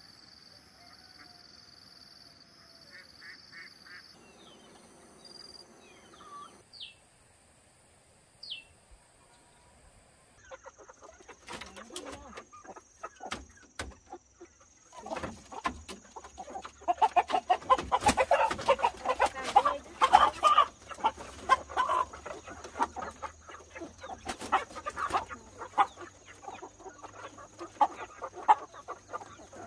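Domestic chickens clucking and squawking, quiet at first and much louder and busier from about halfway, with sharp clicks and knocks among the calls.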